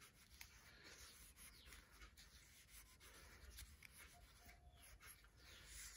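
Faint rubbing and light scraping of a cloth rolled on a wooden stick, wiped around inside a suspension fork's lower leg.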